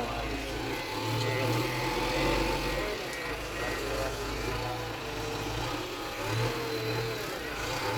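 Heavy diesel engine of a bulldozer running, its low rumble surging and easing, with people's voices faint in the background.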